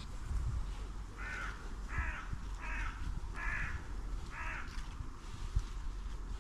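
A crow cawing five times, roughly one caw a second, over a low rumble.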